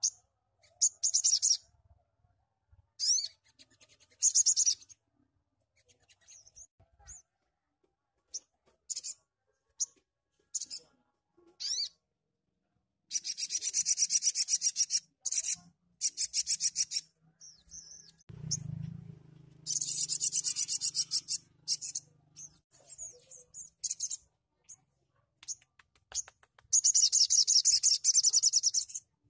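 Male olive-backed sunbird singing: bursts of very fast, high trilled notes, three short ones at first and then three longer runs of two to three seconds each, with short scattered chirps in between.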